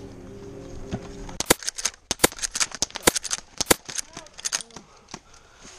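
Airsoft guns firing in a short exchange: a quick, irregular string of sharp snaps and cracks starting about a second and a half in and lasting about three seconds.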